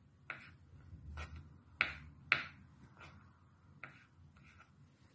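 A small knife slicing button mushrooms on a wooden cutting board. The blade taps the board about seven times at an uneven pace, the two loudest taps near the middle.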